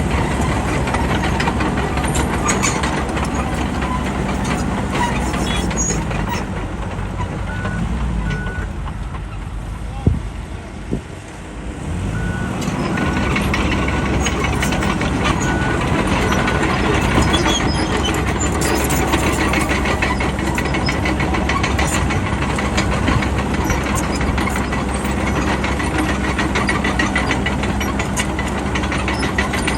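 Bulldozer's diesel engine working under load. It eases off for a moment about ten seconds in, with a couple of knocks, then comes back up. A backup alarm beeps in a short series just after the dip.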